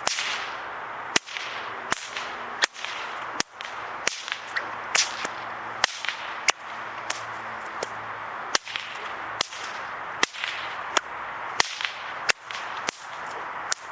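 Bullwhip cracking in a long continuous run of sharp cracks, about one and a half a second, unevenly spaced, as a cracking routine is worked through without a pause.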